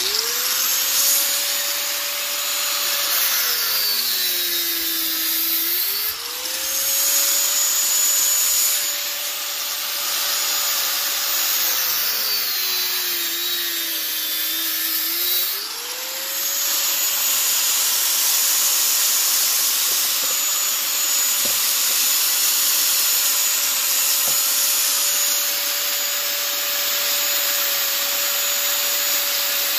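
Corded angle grinder running and cutting through an air-conditioner radiator coil. Its steady motor whine drops in pitch twice for a few seconds, about 4 and 13 seconds in, as the disc bogs down in the cut, then spins back up.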